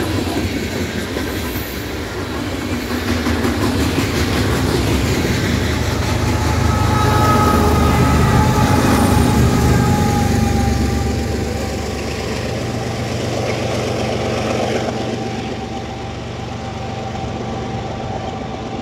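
Freight train passing at track speed: the wheels of hopper cars and boxcars clattering over the rails, with a diesel locomotive at the rear of the train going by about halfway through. The locomotive's engine and a faint whine that drops slightly in pitch make this the loudest part, then the train's rumble eases as it moves away.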